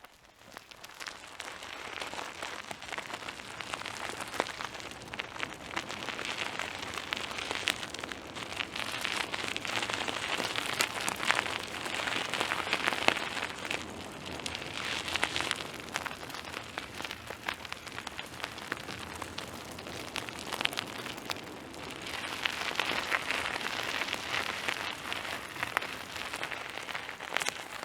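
Mountain bike riding over rough ground: a continuous crunching hiss of tyres on dirt and gravel, scattered with clicks and rattles, swelling and easing every few seconds.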